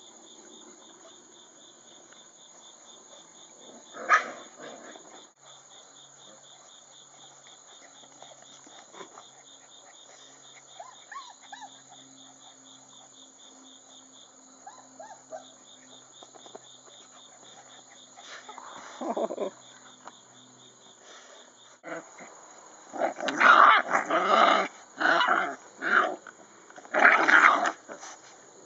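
Six-week-old mastiff puppies growling and yapping as they play, with a cluster of loud outbursts near the end. A steady pulsing chirp of insects runs underneath through the first half.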